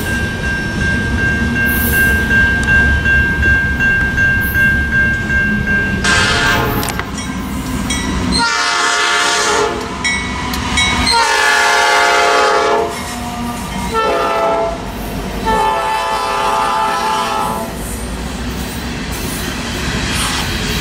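A Norfolk Southern GE AC44C6M diesel locomotive's air horn sounds a series of blasts, the last held about two seconds, as the train passes close by. Beneath it runs the heavy rumble of the locomotives and the clatter of tank car wheels on the rails, and a steady high tone is heard for about the first six seconds before the horn starts.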